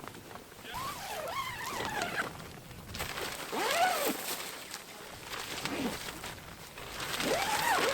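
An animal calling about four times, each call a drawn-out cry that rises and then falls in pitch.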